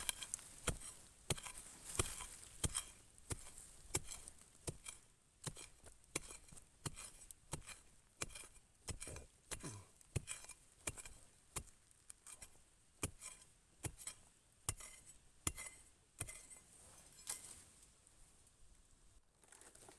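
A hand digging tool chopping repeatedly into soil and roots around the base of a wild hải châu (Sageretia) clump, digging it out for bonsai. The sharp strikes come about two a second and thin out near the end.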